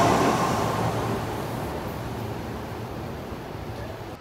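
Train passing through a rail station platform: an even rushing noise that fades steadily as it moves away.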